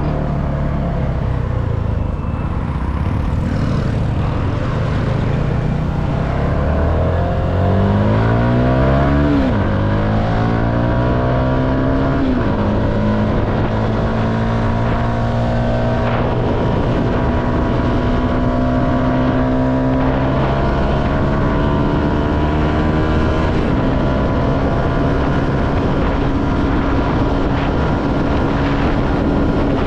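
CFMoto motorcycle engine accelerating, its revs climbing and dropping sharply at two upshifts about nine and twelve seconds in, then running at a steady cruise.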